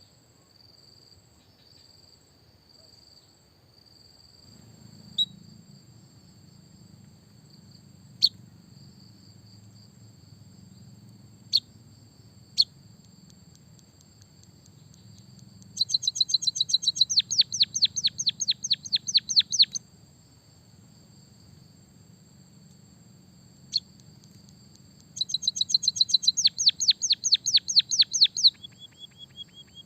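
White-headed munia singing a song filled with canary-style phrases: a thin high steady note with single sharp chirps, then twice a fast run of downward-sweeping notes lasting three to four seconds.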